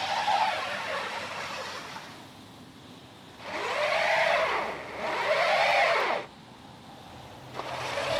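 A car's tires spinning in deep snow as the engine is revved. One spin fades out over the first two seconds, then two more revs each give a whine that rises and falls: the car is stuck in a snowbank and the wheels get no grip.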